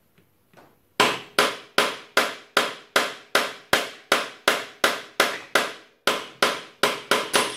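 Repeated hammer blows on a motorcycle's front sprocket to free it from the output-shaft splines. About eighteen sharp, ringing strikes come roughly three a second, starting about a second in, with a brief pause near six seconds.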